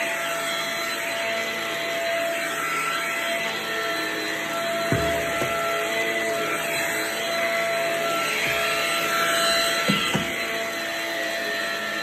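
Stick vacuum running over carpet, a steady motor hum with a whine held at one pitch. Two short knocks come about five and ten seconds in.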